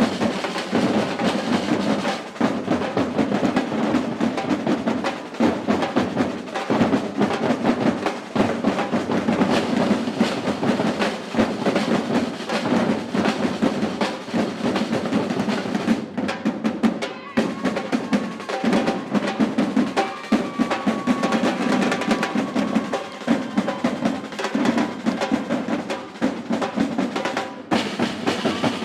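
A Brazilian batucada percussion ensemble drumming a dense, steady samba rhythm.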